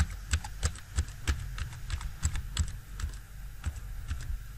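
Computer keyboard keys pressed one after another, about three keystrokes a second, as a string of digits is typed.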